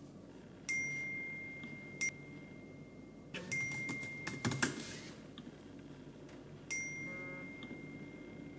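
Laptop keyboard keys and trackpad clicking under typing fingers, with a flurry of clicks about halfway through. A faint steady high tone comes on sharply three times, holding for a second or two each time.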